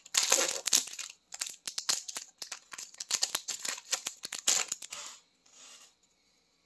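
A hockey card pack's wrapper being torn open and crinkled by hand: a dense crackle that stops about five seconds in, followed by a brief faint rustle as the cards are handled.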